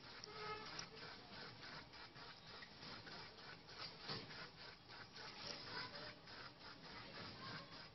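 Faint, steady crackling and fizzing of an aquarium filter's water stream and bubbles at the surface: many tiny ticks close together.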